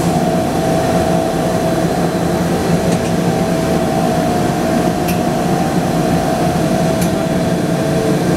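Mazak Variaxis i-600 5-axis machining center running: a steady mechanical hum with a steady whine over it. A few faint ticks come through.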